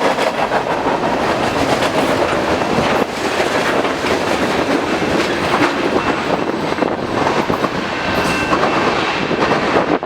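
Freight cars of a long manifest train rolling past, a steady rumble and rattle with the wheels clicking over the rail joints.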